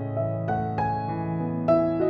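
Background music: a gentle keyboard melody, notes struck every few tenths of a second over a held low bass note.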